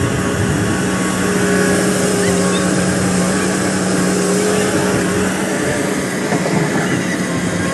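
XE215 crawler excavator's diesel engine running steadily, a continuous hum with several held tones.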